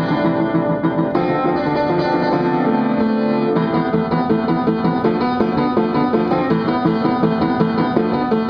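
Piano played continuously: a quick, busy run of notes in a made-up tune.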